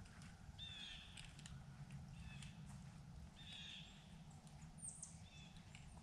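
Faint, harsh bird calls from the woods, repeated about five times roughly a second apart, with a couple of short high chips, over a low steady rumble.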